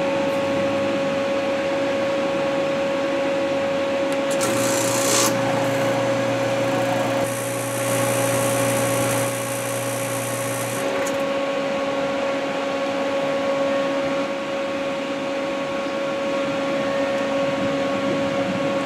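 Robinair Cooltech 34134Z A/C recovery machine running its newly fitted vacuum pump, a steady mechanical hum, as it pulls the vehicle's air-conditioning system into vacuum. There is a brief hiss about four and a half seconds in, and a deeper drone joins the hum from about five to eleven seconds in.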